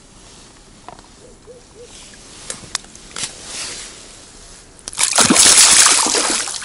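A few small clicks and rustles, then about five seconds in a loud burst of water splashing and sloshing lasting a second or two, as a freshly caught fish is put into a mesh keepnet in the water and thrashes.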